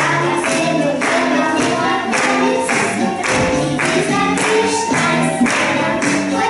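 Two young girls singing a song together in unison over music with a steady beat about twice a second.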